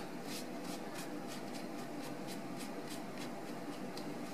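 Paper towel rubbed briskly back and forth over the textured surface of a 3D-printed plastic mask, wiping off wet weathering paint: an even run of scratchy strokes, about four a second.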